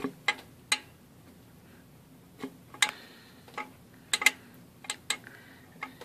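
About a dozen sharp, irregularly spaced clicks and taps of a small plastic tool prying at a connecting rod bearing shell against the crankshaft journal, working the shell loose to roll it out.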